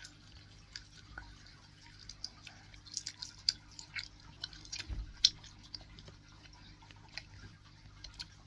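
Dental floss worked between teeth: faint, irregular small clicks and snaps from the mouth, with a soft thump about five seconds in.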